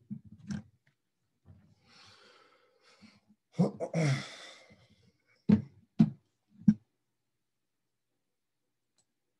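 A man sighs audibly, a breathy exhale about four seconds in, followed by three short clicks about half a second apart.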